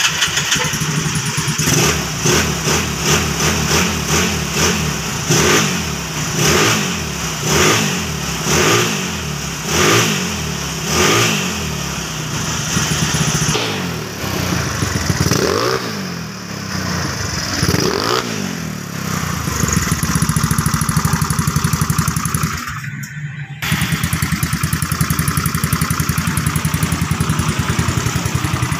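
Motorcycle engine being blipped with the throttle about once a second, a dozen or so short revs, then revved unevenly a few more times before settling into a steady idle.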